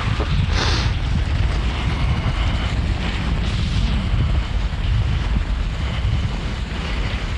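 Steady wind rumble buffeting the microphone. Skis hiss now and then over the groomed snow.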